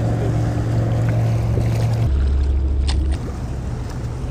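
Steady low drone of a motorboat engine. About two seconds in it drops to a deeper hum, which stops about a second later, leaving a soft noisy wash.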